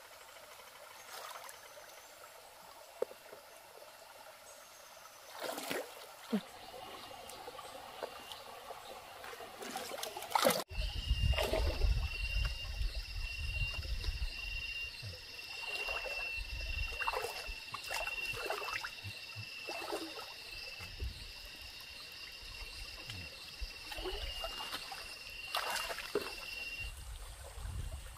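Water trickling. About a third of the way in the sound changes abruptly: a low rumble comes in, and a steady high-pitched tone holds until near the end, with a few short knocks and swishes.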